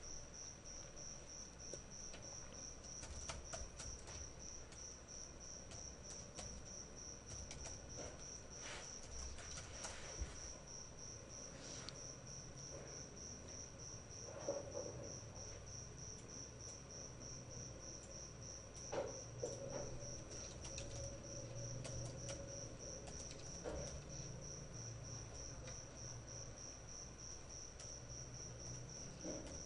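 Faint background: a steady high-pitched trill with a faint low hum and a few soft clicks scattered through it.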